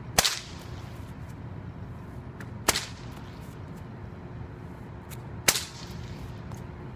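Whip cracking in the Victorian cutback move: three sharp cracks, roughly two and a half seconds apart.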